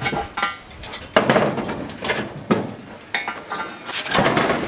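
Loose stone and rubble being scraped and knocked out from around a steel girder set in a stone wall: irregular clinks and knocks of stone on stone and steel, with several short gritty scrapes.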